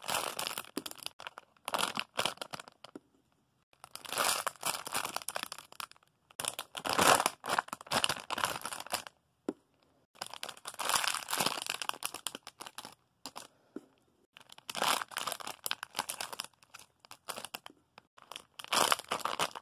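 Plastic packaging crinkling as foam squishy toys are handled and squeezed, in about half a dozen rustling spells of a second or two each, with short quiet gaps between them.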